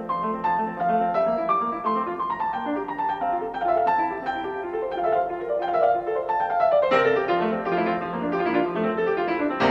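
Background piano music: a flowing run of notes, with a falling line of notes about six seconds in.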